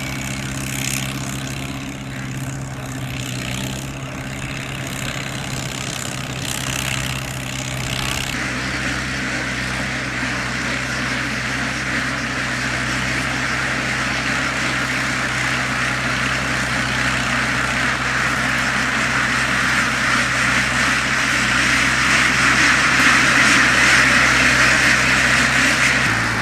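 A motor engine running steadily at an even speed, with a rushing hiss that comes in about eight seconds in and grows gradually louder.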